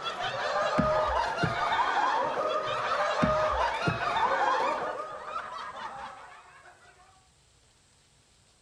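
An audience laughing together, many voices at once, with a few low thumps under it. The laughter dies away after about five seconds and is gone by about seven.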